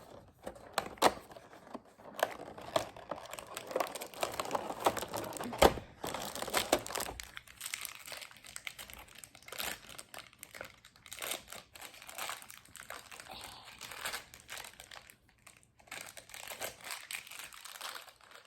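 Plastic and card toy packaging crinkling and tearing as a compartment of a toy blind-box set is opened, with scattered sharp clicks and snaps. The handling is busiest in the first seven seconds or so, then turns sparser.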